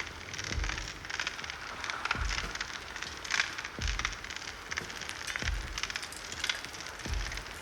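Improvised noise music from turntables and drums: a dense, crackling texture of small clicks, over a low thud that repeats about every second and a half.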